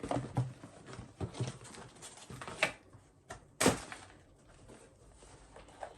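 Handling noises from unboxed items: soft rustles and light taps, with a sharper knock about three and a half seconds in.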